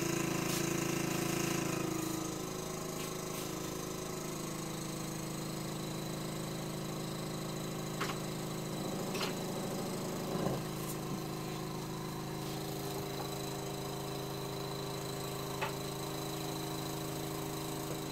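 Small airbrush air compressor running steadily, left running to warm up because the pump has tight clearances and the room is chilly; it drops slightly in level about two seconds in. A few light knocks now and then.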